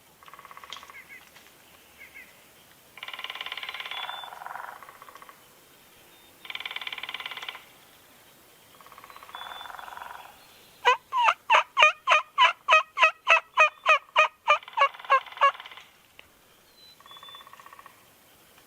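Wild turkey gobbling about five times, each gobble a short rattling call a few seconds apart. About a third of the way in, a much louder, even run of around fifteen yelps, about three a second, lasts several seconds.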